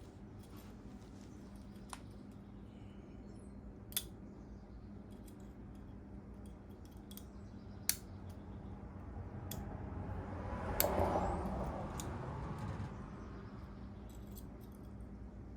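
Sparse sharp metallic clicks and clinks of hand tools and brake hardware being handled during brake work, over a low steady hum. A broad rushing noise swells up in the middle and fades out a few seconds later.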